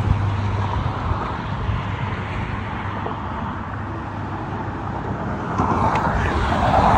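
Road traffic passing on a bridge: a steady noise of cars and tyres that swells near the end as a vehicle draws near.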